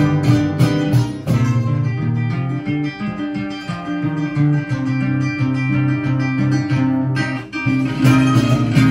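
Live instrumental string music: a strummed acoustic guitar and mandolins playing a tune together, with a cajón keeping the beat. There is a brief dip in the playing about seven and a half seconds in.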